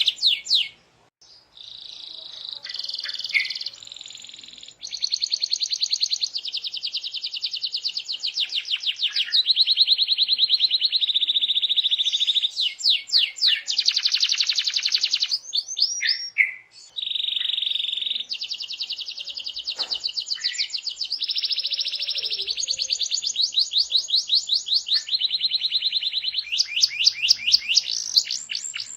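Domestic canary singing continuously in long rapid trills and rolls, switching from one phrase type to the next every second or two, with a few short pauses.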